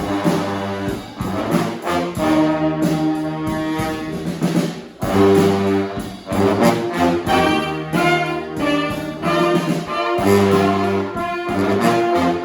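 Brass band playing live: trombones and trumpets in loud held chords over a low brass bass line, in phrases with short breaks about five and ten seconds in.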